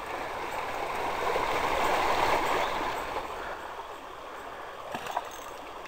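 Shallow stream water rippling over rocks, a steady rushing that swells louder in the middle and eases off again.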